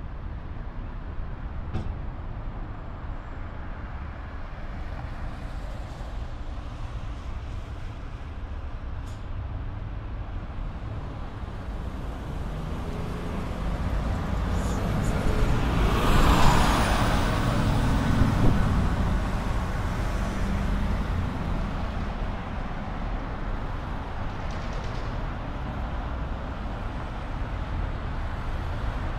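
A Golden Gate Transit bus draws near and passes close by. Its engine and road noise build to a peak about halfway through, with a short hiss at the loudest point, then fade back into a steady low traffic rumble.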